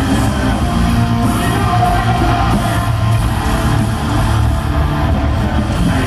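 Live hard rock band playing loud, with electric guitars, bass, drums and singing, recorded from the audience in a large hall.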